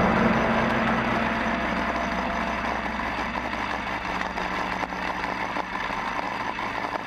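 A homemade rail speeder's small engine running steadily as the cart rolls along the track: an even low hum with rumble, easing slightly in level.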